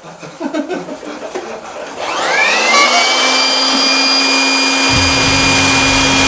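An electric blower motor switches on about two seconds in. Its whine rises quickly and then holds steady as it blows air, presumably to inflate a giant balloon. A low rumble joins about five seconds in.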